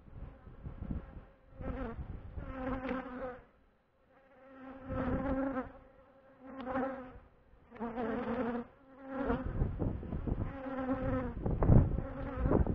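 Honeybees buzzing as they fly close past the microphone beside their hive, in about six separate passes. Each buzz swells and fades over a second or so as a bee comes and goes. The loudest pass comes near the end, with low rumbles under it.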